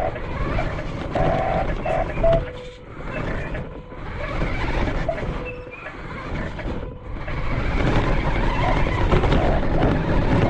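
Large electric 1:6-scale RC monster truck driving over rough ground, its motor and tyre noise rising and falling. Short steady beeps come now and then over the noise.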